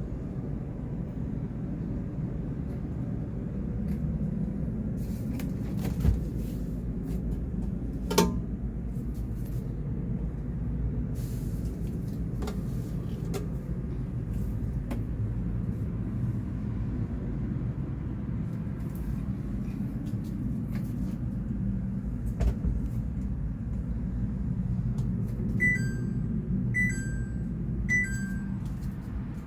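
Steady low hum with a few sharp knocks, then near the end three short two-note electronic beeps about a second apart, like a household appliance's control panel.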